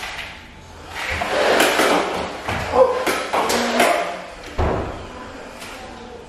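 Nerf foam blaster firing in a quick string of shots and hits, a run of thumps and clacks from about one to four seconds in, then one sharp knock.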